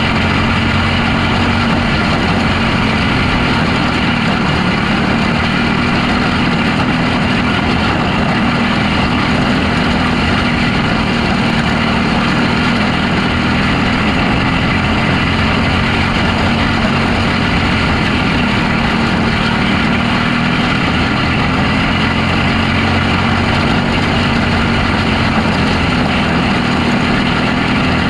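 Box stock micro sprint car's motorcycle engine running hard at racing speed, heard onboard with wind and track noise, its note dipping slightly twice as it laps the oval.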